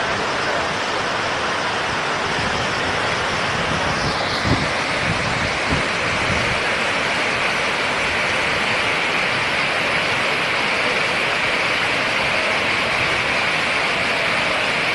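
Steady rush of floodwater after a heavy downpour, with two short dull thumps about four and a half and six seconds in.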